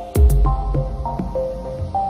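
Electronic background music: a synth melody of short stepping notes over a deep bass, with a heavy drum hit and a sharp click just after the start.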